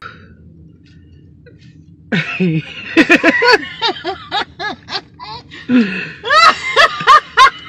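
Laughter in quick repeated bursts, starting about two seconds in and getting louder near the end.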